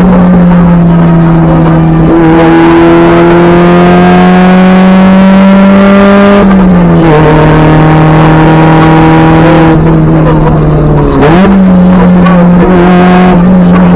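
Honda B18B1 four-cylinder engine in a 1994 Acura Integra pulling hard under load, loud and raw because the exhaust has rusted off after the catalytic converter. The engine note climbs steadily through a gear, drops in pitch at a gear change about six seconds in, climbs again, then jumps back up in pitch about two-thirds of the way through.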